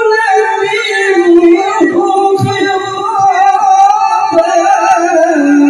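A male qari reciting the Quran in tilawah style into a microphone, carrying one long high-pitched phrase with wavering melismatic ornaments.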